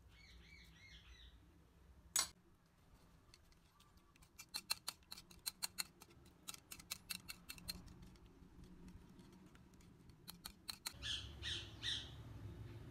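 Wire whisk beating egg in a ceramic bowl: rapid, uneven clicks of the metal tines against the bowl, with one sharp tap about two seconds in. A bird chirps in the first second, and calls again near the end.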